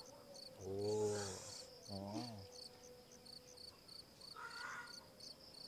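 Crickets chirping in an even, rapid train of short high pulses, with a person's two short low hums about a second and two seconds in.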